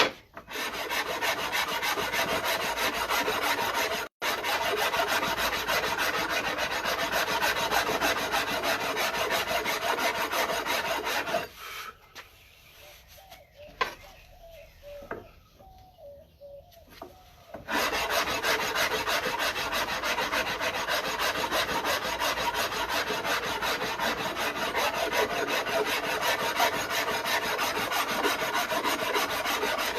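Hand rasp filing the wooden back of a bass neck in steady, rapid strokes, levelling high spots to a flat back. About halfway through the rasping stops for several seconds, with only a few light knocks, then resumes.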